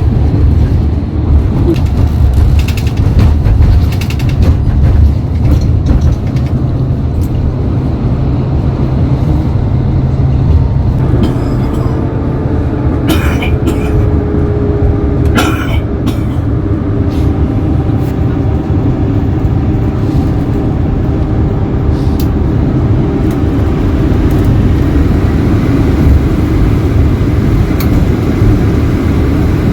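Coach engine and road noise heard from inside the passenger cabin: a steady low rumble at motorway speed. A faint engine whine joins about a third of the way in, and a few brief knocks come near the middle.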